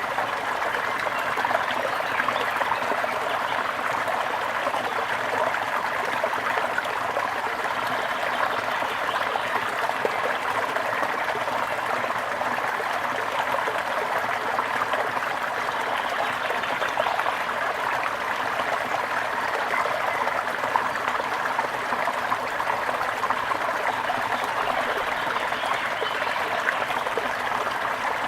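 Waterfall: falling water splashing steadily and without pause.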